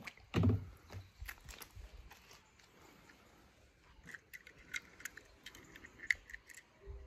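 Small metallic clicks and taps of die-cast toy cars being handled and picked up off a felt mat, with a soft thump about half a second in.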